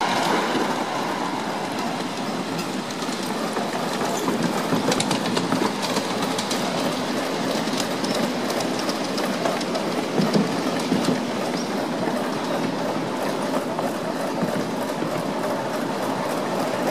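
5-inch gauge miniature Krauss steam locomotive running with its train, a steady rushing noise with wheels clicking over the rail joints.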